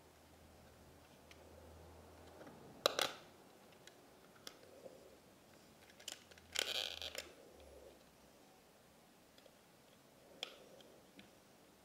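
Plastic Polly Pocket compact being handled: scattered faint clicks and taps of plastic, one sharp click about three seconds in, and a short scrape a little past halfway.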